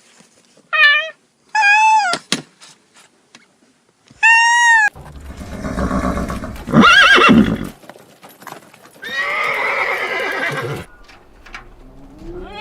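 A series of animal calls: three short, high-pitched calls in the first five seconds, then longer, noisier calls.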